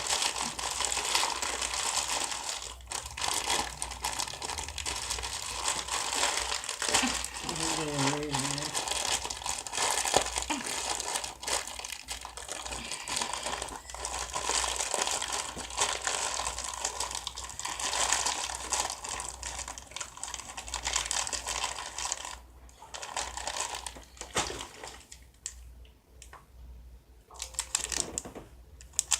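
Candy bag and hard-candy wrappers crinkling and rustling as they are handled and opened, with many small crackles, thinning out to a few quieter rustles near the end.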